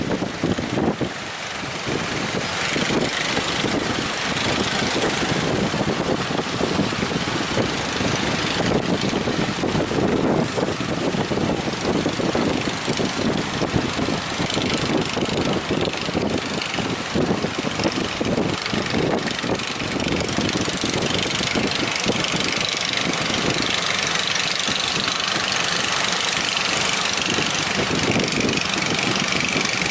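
Fishing boat engine running steadily, with a rapid, even pulsing.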